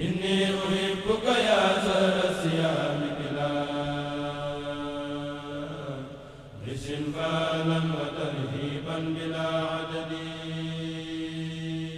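Religious chanting: a voice sings long drawn-out phrases, with a short break about halfway through.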